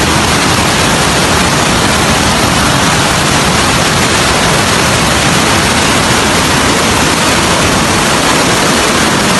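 Flash-flood torrent of muddy water rushing down a street: a loud, steady rushing noise.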